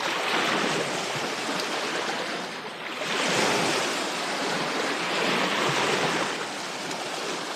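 Steady rush of moving river water, swelling and easing in level every few seconds.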